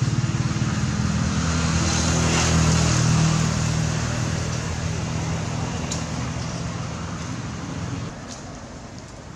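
A motor vehicle's engine running with a low, steady drone that fades steadily as it moves away.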